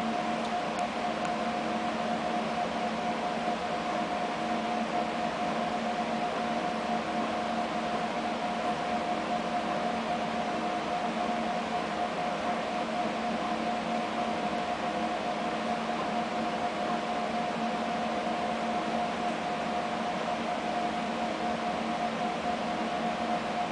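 Steady mechanical hum with a constant mid-pitched whine and a fainter lower hum beneath it.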